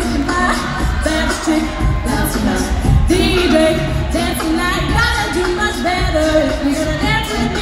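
A mixed-voice a cappella group singing a pop song through stage microphones, several vocal lines in harmony over a steady vocal-percussion beat.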